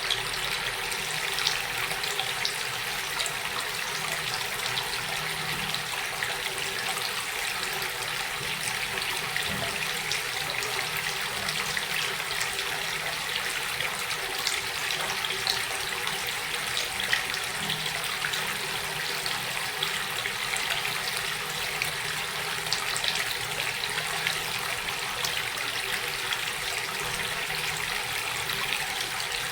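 Flowing water running steadily, a continuous splashing trickle with many small droplet ticks.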